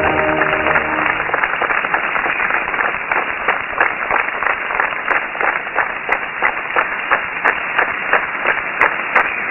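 Audience applauding, falling into rhythmic clapping in unison at roughly three claps a second. Music fades out in the first second.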